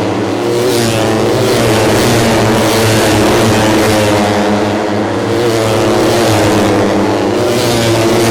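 Several 150 cc four-stroke underbone race motorcycles running hard at high revs, their overlapping engine notes rising and falling together.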